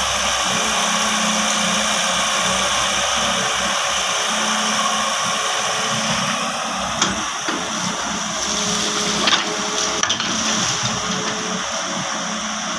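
John Deere 160 excavator working: its diesel engine and hydraulics run steadily with a high whine, with a few sharp knocks in the second half.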